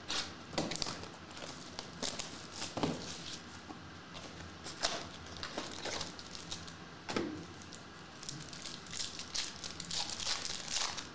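Cardboard box opened, then a foil trading-card pack handled and torn open: irregular crinkling and crackling with scattered small ticks.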